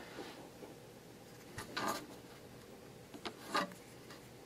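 Faint handling noises: two short, soft scraping rubs, about two seconds and three and a half seconds in, over quiet room tone.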